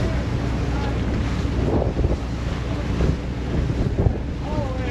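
Steady wind buffeting the microphone on the deck of a wooden schooner under sail, with the wash of the sea along the hull beneath it.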